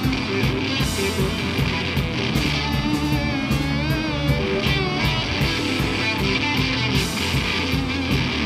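Live rock band playing: electric guitars, bass and drums with steady cymbal hits, and a wavering high guitar line over the top.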